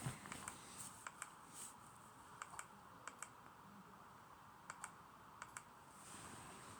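Faint, irregular small clicks, often two close together, about a dozen in all, over quiet room tone.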